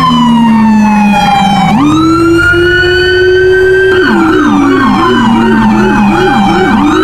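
Police car siren. It starts as a slow wail that falls, jumps up and climbs again; about four seconds in, a fast yelp of about three sweeps a second joins over the wail.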